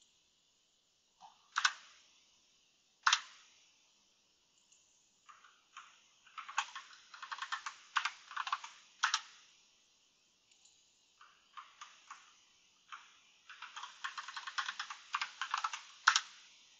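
Computer keyboard typing: a few single sharp keystrokes, then a quick run of typing about six seconds in and another from about thirteen seconds in.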